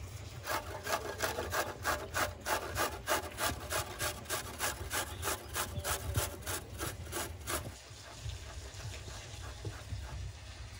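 Garlic cloves being rubbed back and forth on a small metal hand grater, a steady run of rasping strokes at about three a second that stops about three-quarters of the way through.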